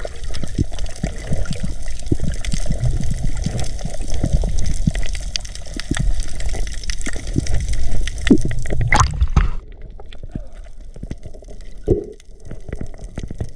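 Water gurgling and splashing with many small clicks and knocks, quieter after about nine and a half seconds.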